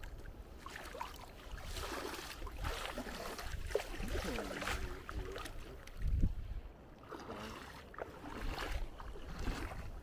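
Bare feet wading through ankle-deep seawater, a series of sloshing, splashing steps, with some low wind rumble on the microphone.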